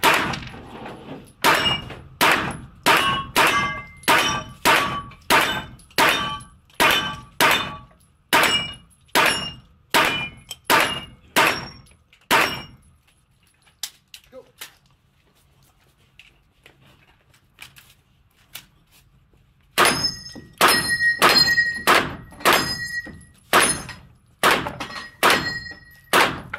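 Rapid semi-automatic shots from a Luvo LA-15 9x19mm carbine on an indoor range, about two a second, each with a short metallic ring from the struck steel target. Firing stops for about seven seconds halfway through, with only faint clicks, then a second string of shots starts.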